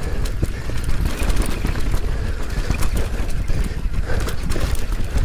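Mountain bike riding fast down a rough trail: wind buffeting the helmet- or body-mounted camera's microphone as a heavy rumble, with tyres on dirt and rock and frequent sharp, irregular clicks and rattles from the bike over bumps.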